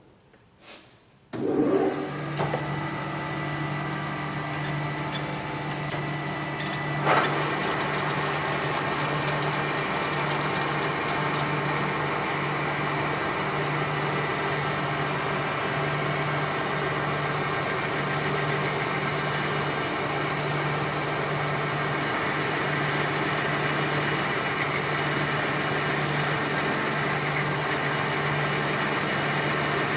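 A machine motor starts about a second in and runs steadily with a low hum and a broad mechanical whir; a sharp click about seven seconds in, after which it runs slightly louder.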